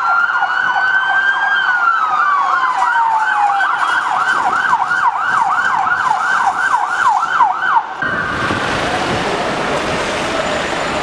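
Police siren sounding: a slow wail that rises then falls, overlaid by a fast yelp of about three sweeps a second. Both cut off suddenly about eight seconds in, leaving street traffic noise.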